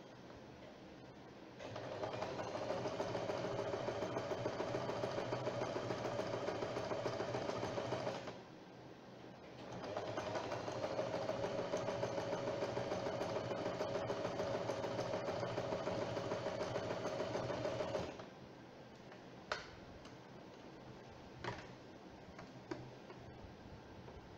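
Usha Janome Wonderstitch sewing machine stitching in two long runs, about six and eight seconds, with a short stop between them. A few light clicks follow near the end.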